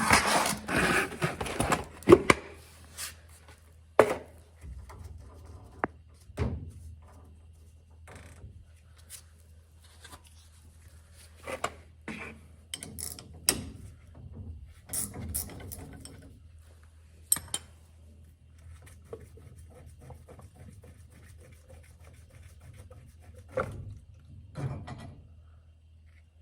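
Scattered metal clanks, clicks and scrapes of hand tools on an oil furnace's oil filter canister as it is taken apart for a filter change, busiest in the first couple of seconds. A steady low hum runs underneath.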